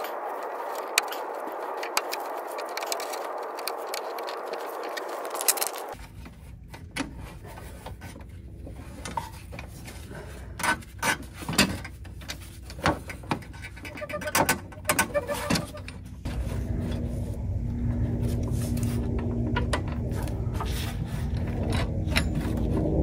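Gloved hands working rubber fuel hoses and spring clamps onto a small inline fuel filter: scattered clicks, scrapes and light metal jingles. The first few seconds are a steady hiss, and from about two-thirds of the way in a low steady rumble runs under the handling noise.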